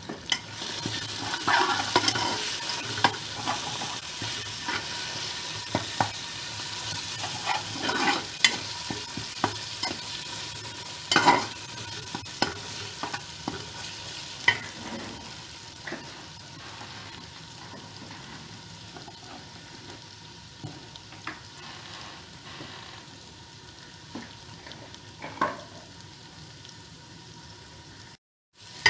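Sliced onions, garlic and turmeric sizzling in oil in a metal pot as they brown, with a slotted metal spatula scraping and tapping against the pot as they are stirred. The scrapes and taps are frequent through the first dozen seconds, with a sharp one about eleven seconds in, then come only now and then.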